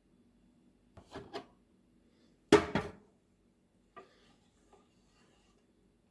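A few short knocks and scrapes of kitchen items being handled: two about a second in, a louder double knock about two and a half seconds in, and a small tap near four seconds.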